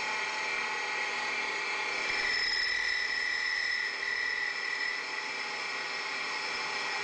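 CNC polygon lathe running and machining, a steady mechanical whir with several constant whining tones; a high whine grows louder about two seconds in and eases back about five seconds in.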